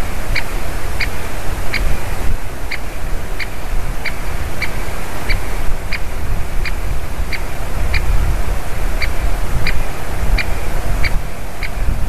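Great spotted woodpecker giving its sharp single 'kik' call over and over, about one and a half calls a second, over a steady low rumble of wind on the microphone.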